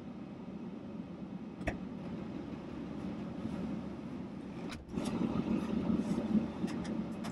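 Pickup truck engine idling steadily, with one sharp click about a second and a half in. Partway through the hum grows louder and closer, with small clicks and rustling as a person settles into the seat and pulls the seatbelt across.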